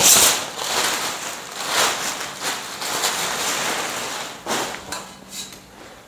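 Loud, irregular rustling and crackling of packaging being handled and pulled around a metal bed frame piece, with louder surges near the start, about two seconds in, and about four and a half seconds in, fading near the end.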